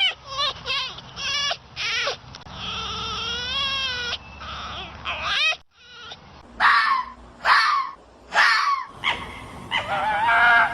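A string of animal calls from different clips: several short cries, one long wavering cry, then three loud separate cries and a last drawn-out call.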